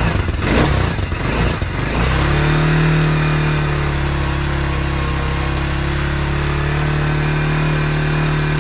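1980 Kawasaki KZ250 motorcycle engine running. It is blipped unevenly for the first couple of seconds, then held at a steady speed for the rest. It started and runs without trouble after standing with the fuel tap left open.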